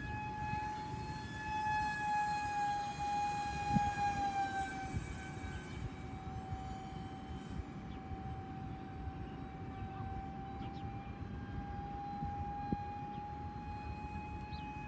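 Electric ducted fan of an RC foam jet whining steadily in flight, its pitch dropping a little about a third of the way in and then slowly climbing back. Wind rumbles on the microphone underneath.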